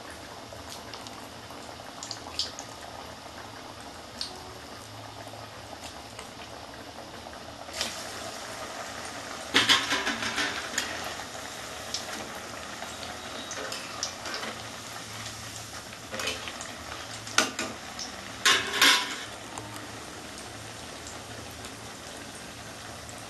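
Onion pakoras in gram-flour batter deep-frying in a kadai of hot oil, the oil bubbling and sizzling steadily. A few louder spells of sizzling and spatula clatter come about ten seconds in and again near nineteen seconds, as the fritters are turned.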